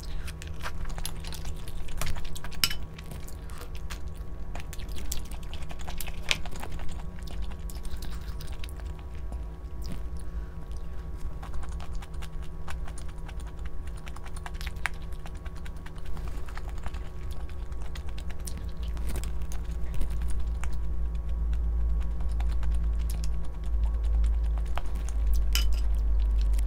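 Irregular light clicks and taps of kitchen utensils against dishes, over a steady low hum.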